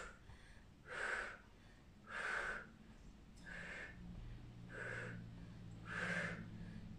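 A woman breathing out hard in a steady rhythm, five short puffed exhalations about one every second and a quarter, with the effort of repeated backward leg swings.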